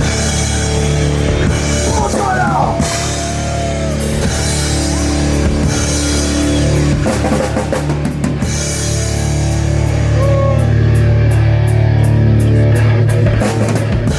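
Live rock band playing loudly: a drum kit with cymbal hits over sustained low bass notes.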